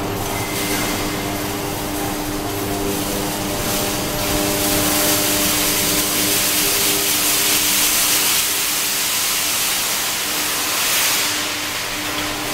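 Industrial noise at an electric arc furnace plant: a steady electrical hum under a loud hissing rush that swells from about four seconds in and eases near the end.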